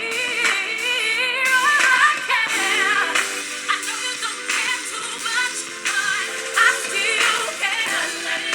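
Pop song with a female vocal played back through a smartphone's small built-in speakers: thin, with no deep bass.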